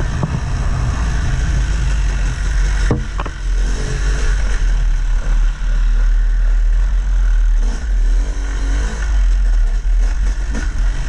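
Yamaha YZ250 two-stroke single-cylinder dirt bike engine revving up and down with the throttle while riding, with a sharp knock about three seconds in.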